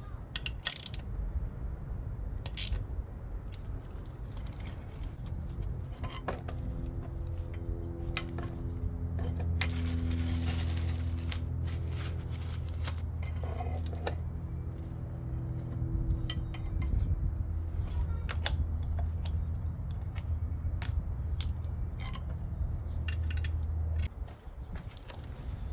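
Metal tools and parts clinking and tapping at irregular moments, over a steady low hum that cuts off near the end.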